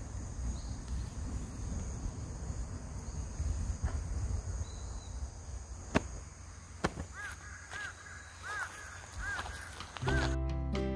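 Low rumble of wind on the microphone, with two sharp clicks. In the last few seconds a bird calls a quick series of short arching notes, about seven of them. Acoustic guitar music comes in right at the end.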